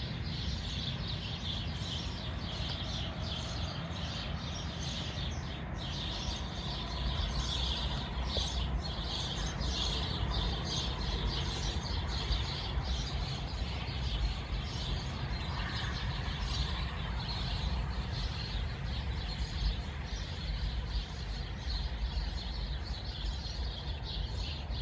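Outdoor evening ambience: birds chirping steadily over a constant low rumble.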